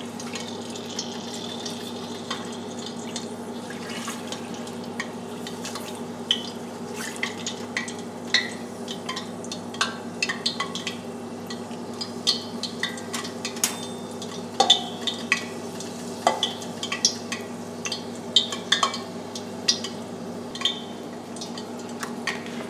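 Hot peanut oil in a steel stockpot crackling and popping in scattered sharp ticks that grow more frequent after the first few seconds, over a steady low hum. The oil is heated for deep-frying and is very hot.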